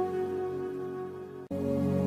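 Background music: held, sustained notes fading down, then cutting off abruptly about one and a half seconds in as a new piece of music begins.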